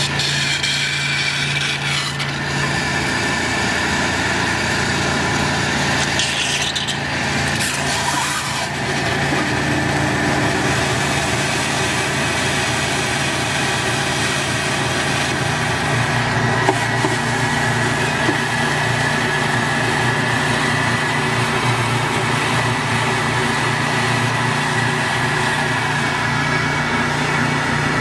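Steady drone of the ThawRig's hot-water pressure washer and vacuum tank system running, with a steady high whine on top, while the ThawHead melts ice and the meltwater is sucked into the vacuum tank. There is a brief rougher, noisier stretch a few seconds in.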